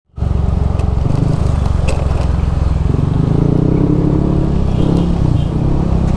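Motor scooter engine running as it is ridden slowly through traffic, a steady low drone.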